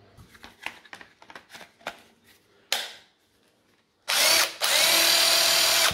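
Clicks and knocks of the plastic battery pack being handled and fitted. About four seconds in, a DeWalt 18V XR cordless driver runs unloaded for about two seconds with a brief break just after it starts, powered by the rebuilt 18V battery pack as a test.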